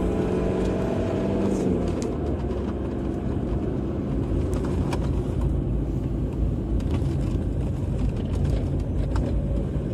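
A car driving, heard from inside: a steady low road-and-engine rumble, with the held notes of a music cue dying away in the first two seconds.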